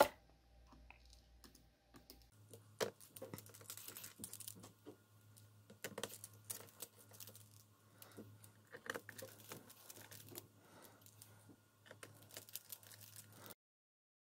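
Precision screwdriver driving small screws into a laptop's plastic bottom cover: faint, irregular clicks and taps of the bit and screws, over a low hum, both stopping suddenly near the end.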